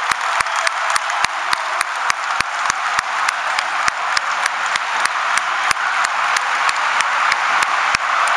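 Large crowd of football supporters in a stadium stand, a dense steady roar of crowd noise with a fast, regular beat of sharp claps or hits running through it.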